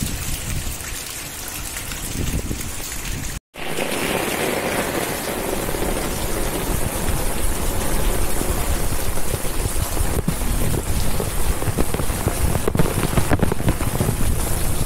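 Heavy monsoon rain. For the first few seconds, rainwater runs down a wall corner and splashes onto the ground. After a short break about three and a half seconds in, steady heavy rain falls on paving.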